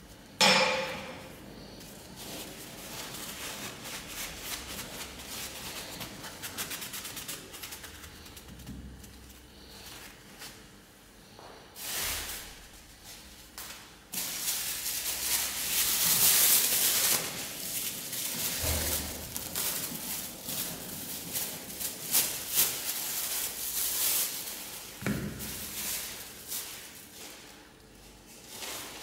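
Handling noise at a workbench: a sharp knock about half a second in, then a long stretch of rustling and scraping that grows louder in the middle, with a few dull thuds as the sharpening stone and its rubber holder are moved.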